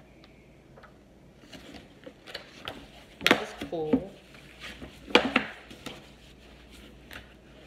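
Paper books handled on a tabletop: light page flicks and rustles, with two sharp slaps about three and five seconds in as books are set down or pages smacked flat. A brief murmur of a voice sits between the two slaps.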